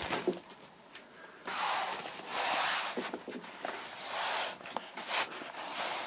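Handling noise as an ironing board is turned over: its plastic wrapping rustles in a few noisy swells, with a few light clicks and knocks near the end.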